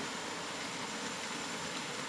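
Steady rain falling, an even, unbroken hiss with no separate drops or thunder standing out.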